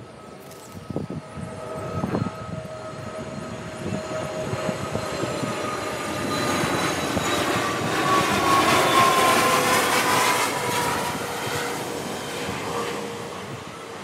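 A passing engine: a steady whine that drifts slightly down in pitch over a broad rushing noise, swelling to its loudest a little past the middle and then fading.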